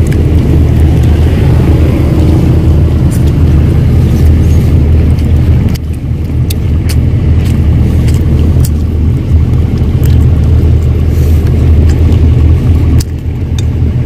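An engine running steadily nearby, a loud low rumble that dips briefly twice, with faint small clicks over it.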